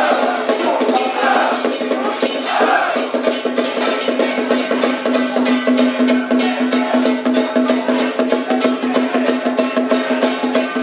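Temple-procession percussion music: drums and cymbals struck in a fast, steady beat of about four strokes a second over a held tone, with a gliding melody line in the first few seconds.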